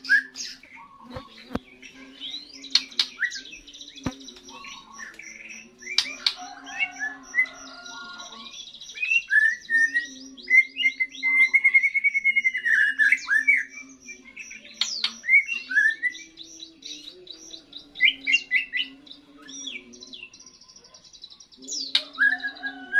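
Young white-rumped shama, just through its molt, singing: a varied run of clear whistled phrases, sweeping and rising notes and fast high trills, with brief pauses between phrases.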